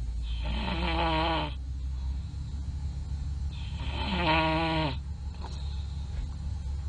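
A person snoring loudly: two long snores about three seconds apart, each with a clear pitch that dips slightly as it ends.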